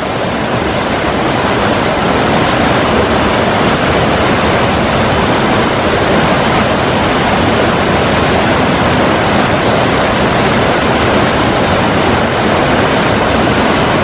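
Jungle waterfall pouring over rock into a plunge pool: a loud, steady rush of falling water.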